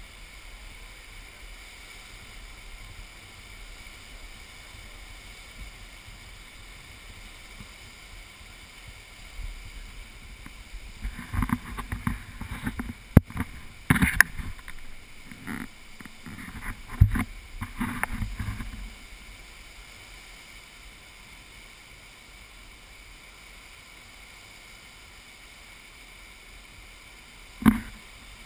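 Muddy flash-flood water rushing past as a steady low rush. About ten seconds in, a run of loud irregular knocks and rustles lasts for some eight seconds, and a single sharp knock comes near the end.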